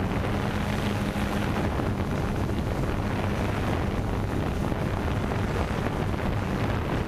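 Steady wind rushing over the microphone, with a faint low hum beneath it.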